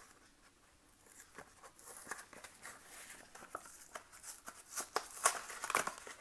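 Paperboard MRE entree carton being pried open by hand, its glued end flap peeling and tearing in a run of small crackles and rips as the aged glue gives way, busier after about two seconds.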